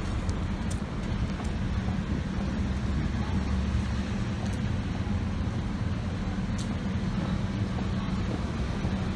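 Street traffic with a steady low engine hum, as of a vehicle idling nearby, and a few faint ticks.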